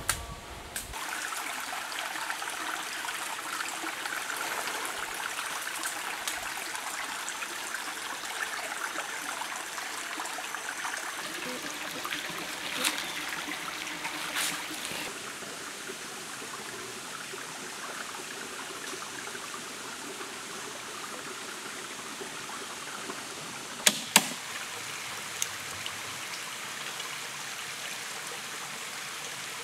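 A small stream running over stones, a steady rush of water. A few sharp knocks stand out, the loudest two close together near the end.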